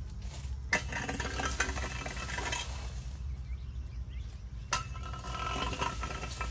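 A rake scraping and dragging dry leaves across a concrete pavement in two long sweeps, one starting about a second in and one about five seconds in, over a steady low rumble.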